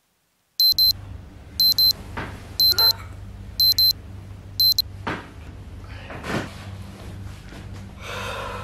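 Electronic alarm beeping in quick high double beeps about once a second, stopping about five seconds in, as a wake-up alarm goes off. A couple of short rustles follow as someone stirs in bed.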